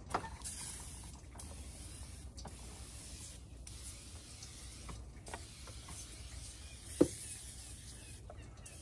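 Aerosol can of degreaser spraying in several long hissing bursts with short breaks between them. There is a sharp knock about seven seconds in.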